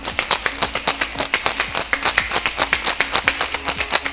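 Ice rattling hard inside a metal cocktail shaker, shaken in a fast, even rhythm of about eight strokes a second to chill the cocktail mix.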